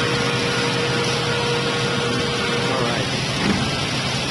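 Steady noise of woodworking factory machinery, with a thin steady whine that stops about three seconds in.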